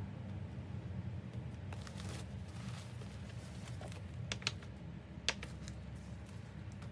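Packaging and a bag being handled: a stretch of rustling, then a few light, sharp clicks, over a steady low hum.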